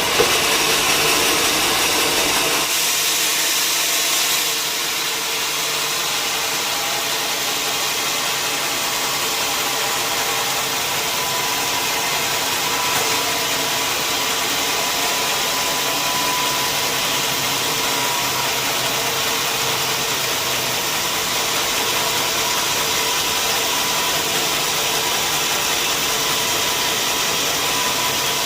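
Sawmill machinery running steadily, an engine-like drone with a faint steady whine; the low hum drops away about three seconds in.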